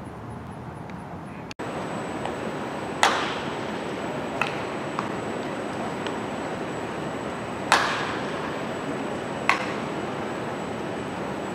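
Baseball bat hitting pitched balls in batting practice: three sharp, loud cracks of contact a few seconds apart, with two fainter knocks between the first two, over steady background noise.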